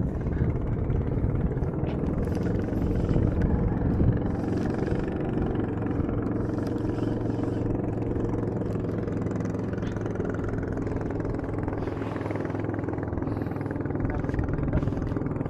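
Engine of a motorised outrigger boat (bangka) running steadily, a constant hum.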